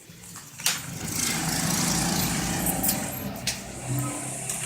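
A motor vehicle's engine running close by, growing louder about a second in and then holding steady, with a couple of sharp clicks.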